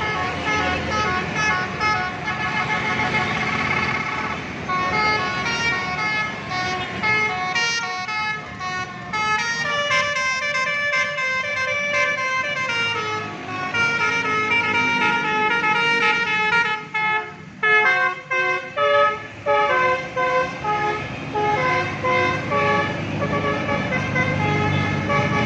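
A bus's multi-note telolet musical air horn playing a melody of stepped notes, with an engine running underneath.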